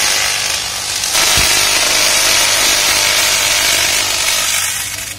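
High-voltage substation circuit breaker operating: a loud, steady rush of escaping gas or air that swells about a second in, with a brief low thump, and dies away near the end.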